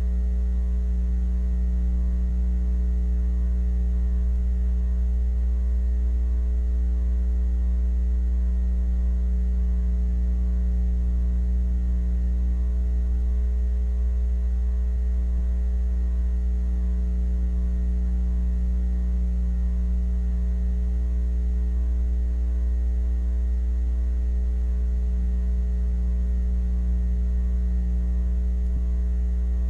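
Steady electrical mains hum, a low buzz with a stack of higher overtones and no change throughout. It is the bare noise of the tape transfer where the soundtrack music is missing.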